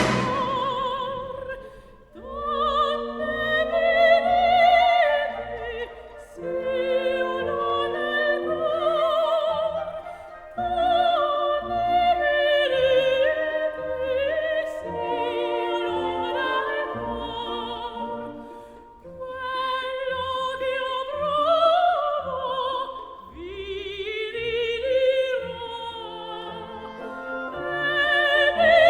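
Background music: an operatic voice singing with strong vibrato over orchestral accompaniment, in phrases a few seconds long with short breaks between them.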